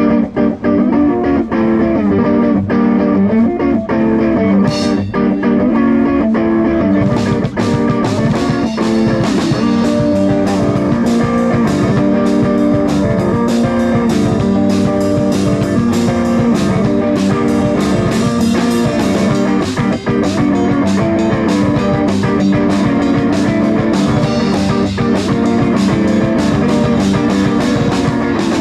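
Rock band playing: guitar over a drum kit, with the drums and cymbals coming in fuller about seven seconds in.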